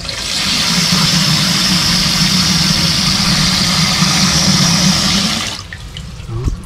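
Water rushing hard through a stainless steel float valve into a plastic water tank while the float is held down. It cuts off sharply about five and a half seconds in as the float is released and the valve shuts off the flow.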